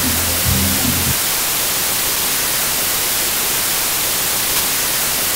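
Loud, steady television static hiss. Under it, a bass-heavy music track cuts off about a second in.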